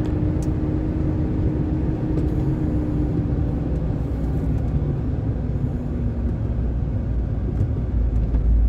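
Engine and tyre road noise inside a vehicle cruising on an asphalt highway: a steady low rumble with a humming tone that fades about halfway through. The rumble grows louder near the end.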